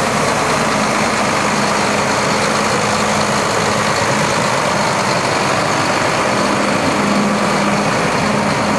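Diesel engine of a Renault Premium hooklift truck idling steadily.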